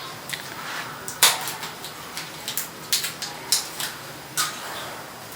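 Irregular sharp clicks and light clinks of small hard items being handled, about a dozen, the loudest about a second in.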